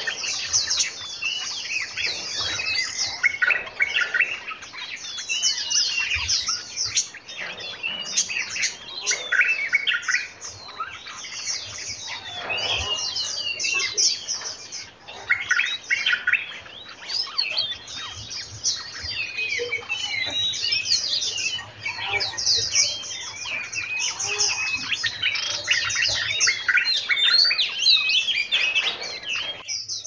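A group of small songbirds chirping and singing without a break, many quick high calls overlapping one another.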